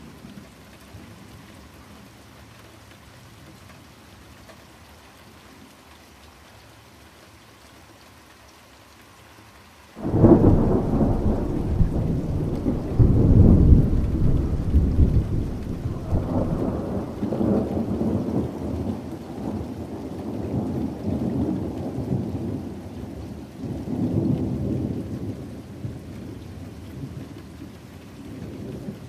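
Steady rain falling. About a third of the way in, a sudden loud thunderclap breaks in and rolls on as a long rumble that swells again several times and slowly fades toward the end.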